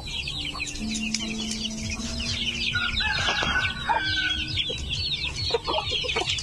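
A flock of native chickens: many chicks peeping continuously in high, short calls, with a louder lower call about three seconds in and short clucks from the hens near the end.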